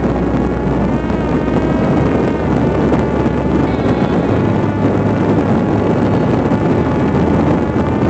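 Parrot Disco fixed-wing drone in flight, heard from its onboard camera: the electric motor and propeller whine, the pitch drifting slightly up and down, over heavy wind rush on the microphone.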